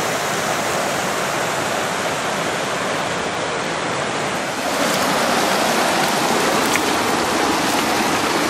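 Mountain creek rushing over rocks in a steady, loud wash of water noise that grows a little louder about halfway through.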